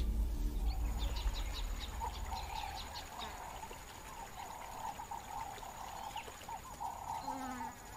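Wild bush ambience: insects trilling steadily at a high pitch, with a lower steady chorus beneath and a few short bird chirps in the first few seconds.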